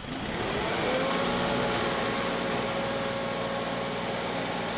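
New Holland Workmaster 55 tractor's diesel engine revving up over about the first second, then running steadily at high revs as the front loader lifts a log.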